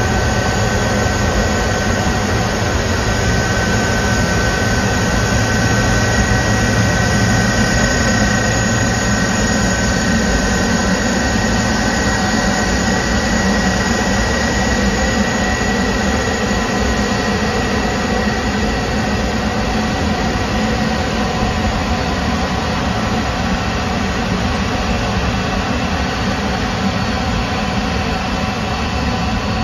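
Jet engines of an Airbus A330 freighter running at taxi power: a steady rush with a thin high whine over it.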